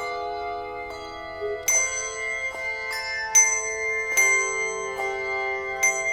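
Instrumental postlude music: slow, struck notes that ring on and overlap, several sounding together as chords.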